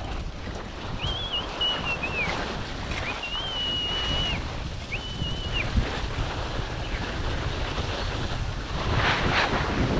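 Rough, steady rushing of snow as a person slides down a steep snowfield on their back, boots ploughing through soft snow, with wind buffeting the microphone. Three high, wavering whistle-like tones sound in the first six seconds.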